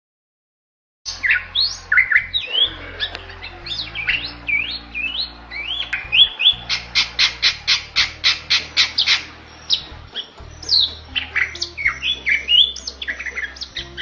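Bali myna singing hard: loud whistles sweeping up and down, with a fast run of about a dozen repeated notes midway, then more varied whistles. The song starts about a second in, after a short dead-silent gap.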